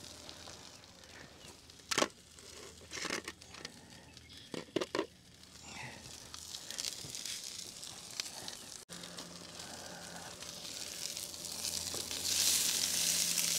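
Sausages sizzling in a pan on a camp stove, with a few short knocks and rustles in the first five seconds. A low steady hum comes in about nine seconds in, and the sizzle grows louder near the end as the sausages are turned.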